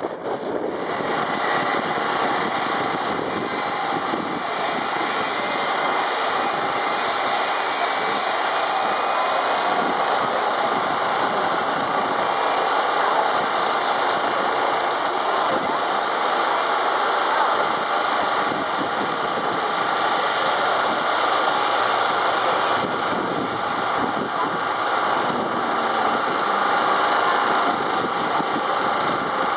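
Boeing 757 jet engines running steadily at taxi power as the airliner turns at the runway end, a loud, even rush of engine noise that swells slightly near the end.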